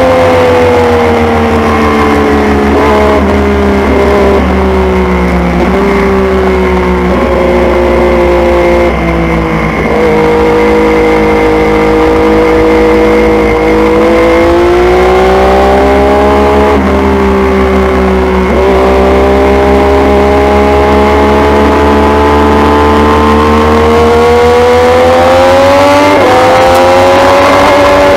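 600cc supersport race motorcycle engine, heard onboard at racing pace. It shifts down several times under braking, the pitch stepping down each time. It pulls low through a slow corner, then accelerates hard, rising in pitch and dropping briefly at each of three upshifts.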